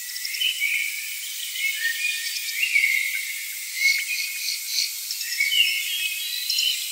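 Forest ambience of insects chirring and trilling, with short gliding whistled calls over it. All of it is thin and high, with no low end.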